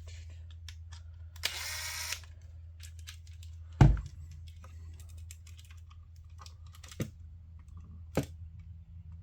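Small clicks and taps of electrical wires and hand tools being handled, with one loud knock about four seconds in and a short scraping rustle near the start, over a steady low hum.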